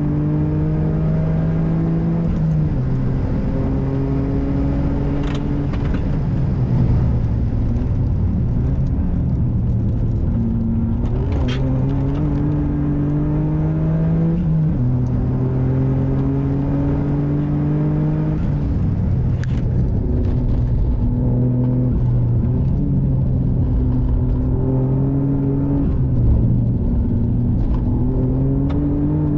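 Toyota GR Yaris's turbocharged 1.6-litre three-cylinder engine, heard from inside the cabin, driven hard: revs climb again and again and drop sharply at each gear change or lift-off.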